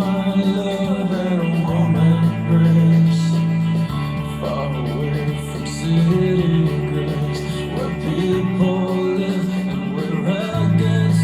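Recorded song with guitar over a bass line that changes note every second or two, an instrumental passage between sung lines.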